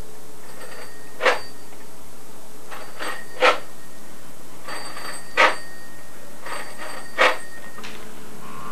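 Four short sharp chirps about two seconds apart, each led in by a faint, high, steady tone, over a steady low hum.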